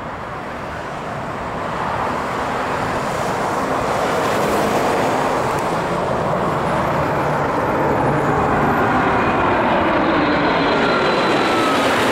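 Boeing 787-8 Dreamliner's jet engines on final approach, the rushing roar growing louder over the first few seconds as it closes in, then holding steady. Faint whining tones fall in pitch near the end as the aircraft passes low overhead.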